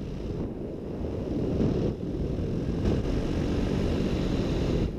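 Paramotor engine and propeller running, heard from the pilot's harness with heavy wind rush on the microphone; it grows louder over the first couple of seconds and then holds steady.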